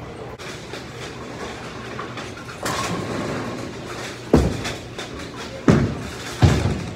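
Bowling alley din: a steady rumble of bowling balls rolling down the lanes, with three sharp knocks in the second half.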